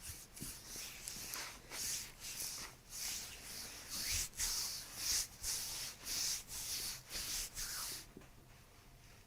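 Hands rubbing back and forth over the patient's hip area in quick, even strokes, about two to three a second, stopping about eight seconds in.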